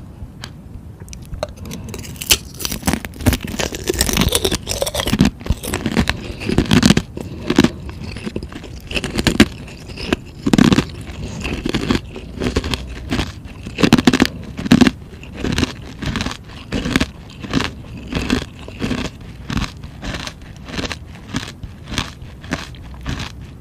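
Close-up chewing and crunching of frozen ice: a quick series of sharp, crackling crunches, one or two a second, starting about two seconds in.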